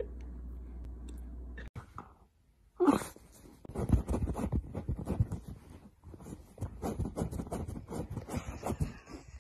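A dachshund burrowing its head into sofa cushions and blankets, making a rapid, irregular run of rustling and snuffling against the fabric that starts about three seconds in. Before it there is a low steady hum that cuts off abruptly.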